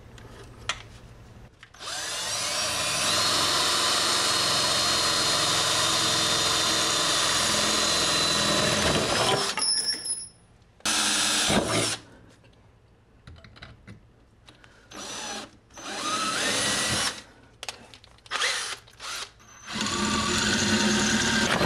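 Power drill spinning a hole saw to cut a hole in a panel: one long steady run of about eight seconds, then a short burst, several brief bursts, and another run starting near the end.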